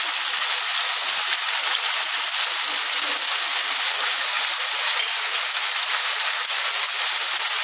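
Cubed potatoes frying in mustard oil in a pan, a steady sizzling hiss.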